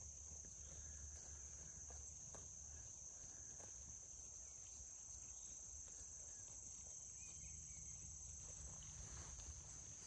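Near silence: a faint, steady high-pitched insect chorus, with a soft low rumble underneath and a few faint scattered ticks.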